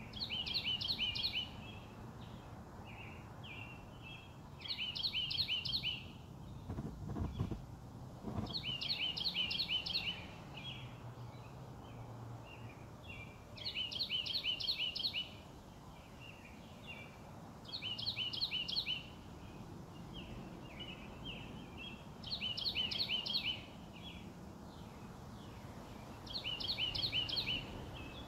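A songbird singing the same short phrase of rapid, repeated notes over and over, about every four seconds, over a steady outdoor background hiss. A brief low rumble comes about seven seconds in.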